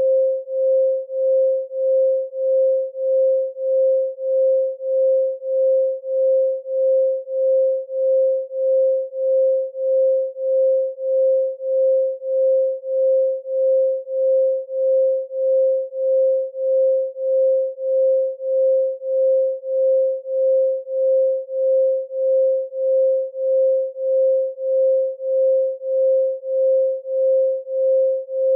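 A pure 528 Hz sine tone, steady in pitch and pulsing smoothly in loudness about one and a half times a second.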